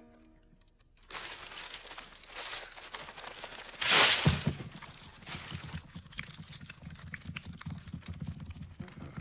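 Mechanical clattering and rattling with a loud burst about four seconds in, settling into a fast, steady low thrumming rhythm, like a contraption running.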